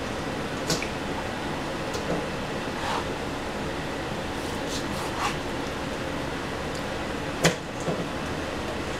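A kitchen knife cutting raw meat on a plastic cutting board, with about six short knocks of the blade against the board, the loudest near the end, over a steady background hum.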